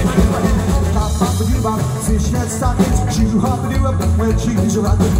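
Live rockabilly band playing with a driving beat: electric guitar, upright double bass and a standing drum kit.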